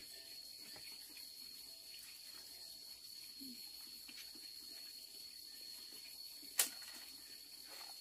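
Insects giving one steady high-pitched drone, with faint footsteps on a stone floor and one sharp click about two-thirds of the way through.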